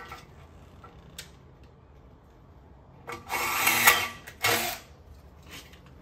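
Cordless drill drilling a small pilot hole into an aluminium gate post: it starts about three seconds in, runs for about a second, then runs again briefly.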